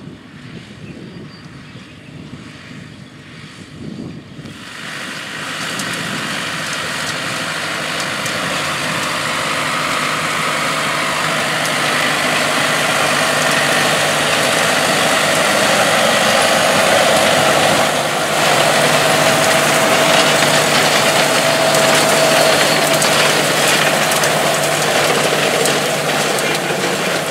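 John Deere tractor running under load while pulling a Claas Liner 1750 twin-rotor hay rake, its tines sweeping cut alfalfa into a windrow. It is faint and distant at first, then from about five seconds in it is suddenly much louder and close: a steady engine hum under a dense rushing noise from the rake and hay.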